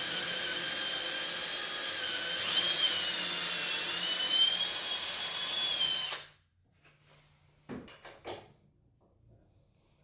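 Handheld power tool motor running with a high whine that wavers slightly, then switching off abruptly about six seconds in. A few short knocks follow near the end.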